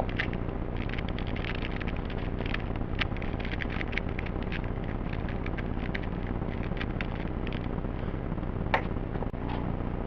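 Plastic 2x2 Rubik's Cube (pocket cube) being scrambled by hand: rapid, irregular clicking and clacking of its layers being twisted, with one sharper clack near the end, over a steady low hum.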